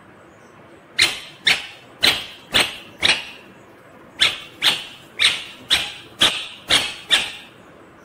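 Indian ringneck parrot giving loud, sharp repeated calls at about two a second: five, a brief pause, then seven more.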